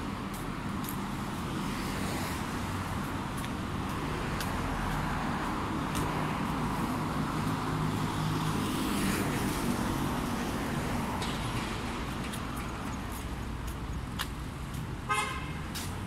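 Street traffic: a steady wash of passing cars, with a vehicle engine passing close and loudest midway. Near the end, one short vehicle horn toot, about half a second.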